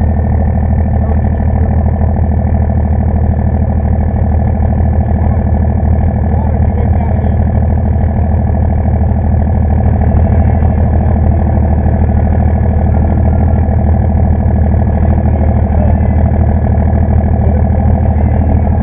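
Diesel pulling truck engine idling steadily and loudly with an even low pulse, and a thin steady whine above it.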